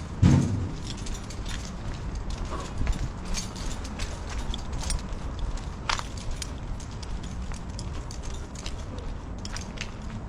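Footsteps with scattered small clicks and knocks over a steady low rumble, with one louder thump just after the start.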